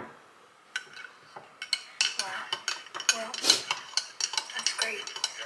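Irregular light clinks and clatters of small hard objects, like cutlery or dishes being handled, with a dozen or so sharp knocks.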